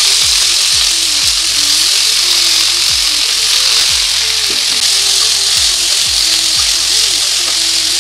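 Freshly added potato chunks and pointed gourd pieces sizzling loudly in hot oil in a kadai: a steady, even frying hiss.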